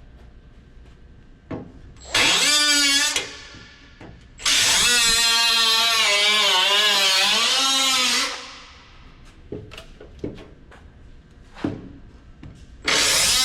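A power tool cutting into the car body's sheet metal in three bursts: a short one, a long one of about four seconds, and another starting near the end. Its whine wavers in pitch as it bites, and small knocks come between the bursts.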